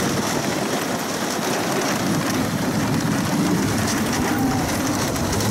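Wooden roller coaster train, a CCI woodie, running at speed over its wooden track, heard from the front car: a loud, steady rattling rumble with no let-up.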